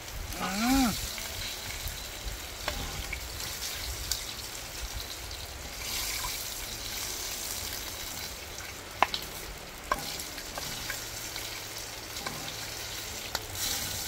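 Pot of rice cooking over an open fire: a steady sizzling hiss with a few sharp crackles, and a short voiced hum near the start.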